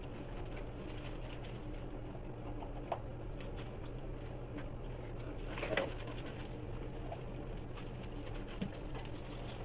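Basset hound puppy eating dry kibble from a stainless steel bowl: faint scattered crunches and clinks over a steady low hum, with a brief louder sound just before six seconds in.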